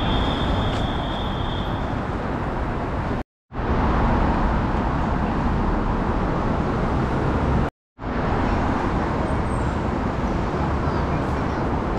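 Steady city street traffic noise, a dense hum of passing vehicles, broken by two brief drops to silence about three and eight seconds in. A thin, steady high tone sounds through the first two seconds.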